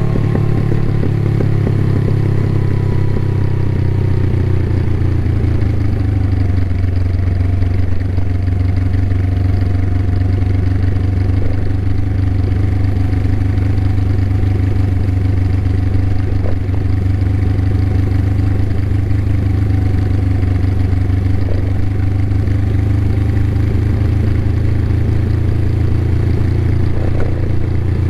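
Suzuki GS500E parallel-twin motorcycle engine running through a Takkoni aftermarket exhaust. Its note falls over the first several seconds as the revs drop, then holds at a steady low speed.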